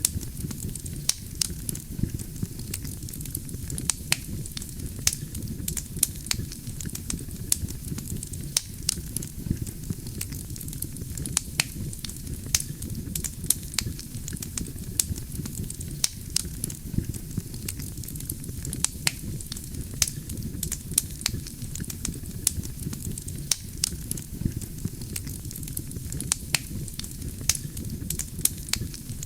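Campfire burning: a steady low rumble of the flames with frequent sharp crackles and pops from the burning firewood.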